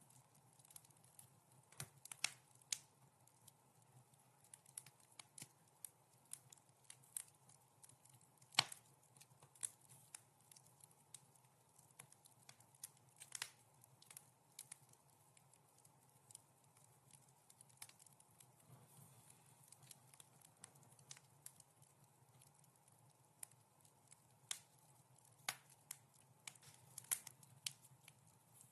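Wood fire crackling in a fireplace: soft, irregular pops and snaps over a faint steady background hiss. The sharpest snap comes about nine seconds in.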